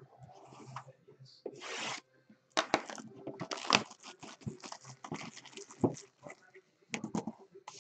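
A baseball card pack's plastic wrapper being torn open and crinkled by hand: a soft rip, then a quick run of sharp crackles and rustles as the pack is pulled apart and the cards handled.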